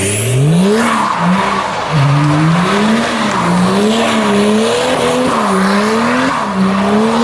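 Drift car engine revving hard, its pitch climbing steeply at the start and then rising and falling about once a second as the throttle is worked, with tyres skidding and squealing.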